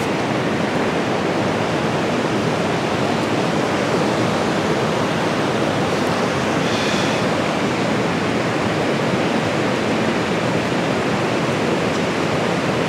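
Water pouring down a concrete dam spillway: a steady rush of churning, foaming white water.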